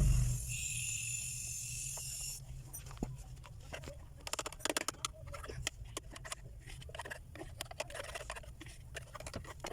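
Aerosol foam air-conditioner cleaner spraying with a steady hiss that stops after about two and a half seconds. It is followed by irregular fine crackling and popping, typical of the foam settling and bursting.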